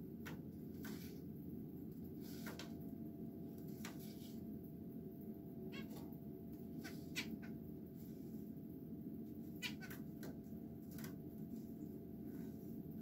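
Zebra finches giving short nasal calls, about a dozen scattered at irregular intervals, over a steady low hum.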